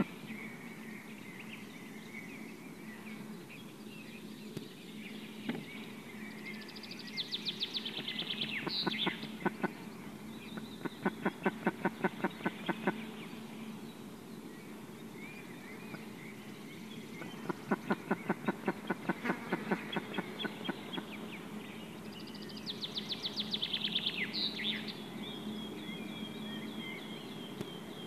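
White-tailed eagle calling at the nest: long runs of rapid, high yelping notes, about ten a second, in two bouts, the first a few seconds in and the second past the middle, each with a few sharp downward-sliding cries. A steady low hum lies underneath.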